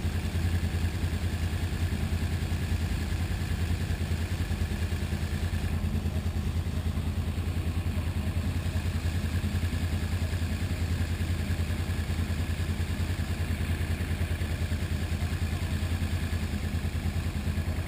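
Sportbike engine idling steadily while the motorcycle stands still.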